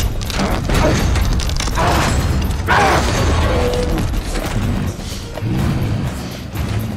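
Film action mix: heavy metal crashes and booms of a tank being flipped and smashed, with a deep rumble, over orchestral score.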